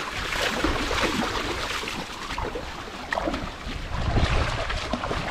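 Wind buffeting the microphone, with a low rumble that swells about four seconds in, over irregular splashing and sloshing of shallow water.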